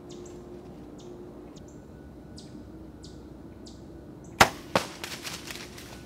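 Bow shot at a whitetail doe: a sharp crack about four seconds in, a second, softer crack a moment later, then a short crackling rush through dry leaves as the deer bolts.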